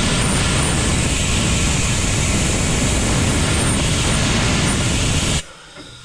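Compressed-air blow gun blasting air into a refrigerator's defrost drain to clear a blockage, a loud steady hiss that cuts off abruptly near the end.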